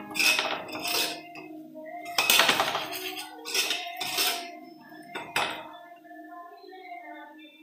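Metal spoon stirring masala in a steel pot, clinking and scraping against the pot about half a dozen times, loudest and longest a couple of seconds in.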